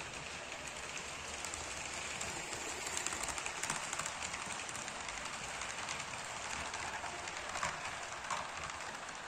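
HO-scale model train running past on its track: a steady metallic rattle of small wheels on the rails, with fine clicking over the rail joints. It grows louder as the steam locomotive and its passenger cars pass close, about three to four seconds in.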